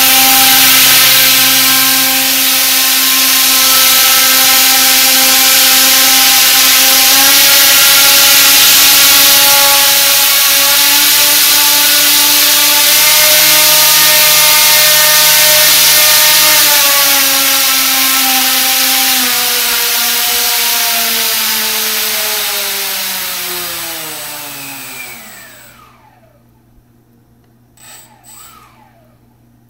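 Drone propeller spinning inside a 3D-printed duct on a static thrust test stand, driven by an electric motor: a loud rushing hiss with a steady motor whine that shifts in pitch a few times. Near the end the whine slides down in pitch as the propeller spins down and stops, followed by a couple of faint clicks.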